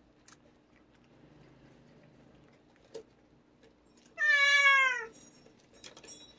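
A cat meows once, about four seconds in: a loud call just under a second long whose pitch slides down at the end.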